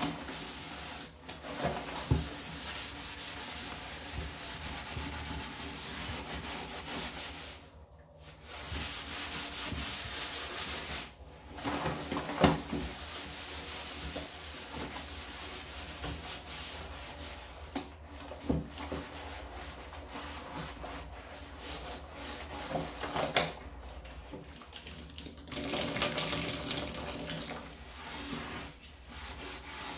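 Rubber-gloved hands scrubbing soapy lather around the inside and rim of a plastic garbage can: a continuous rasping rub with a few brief breaks.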